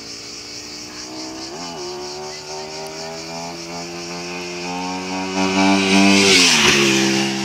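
Aprilia Tuono motorcycle engine approaching under throttle, its note climbing slowly, with a quick rev blip about a second and a half in. It grows loud as the bike passes close on a wheelie near the end, the pitch dropping sharply as it goes by, then fades.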